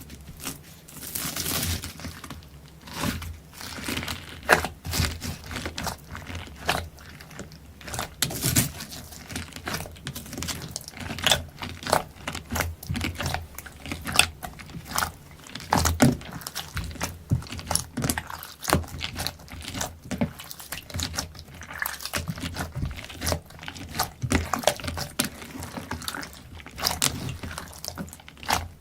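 Slime being squished, stretched and pressed by hand, giving a dense, irregular run of short sharp pops and crackles.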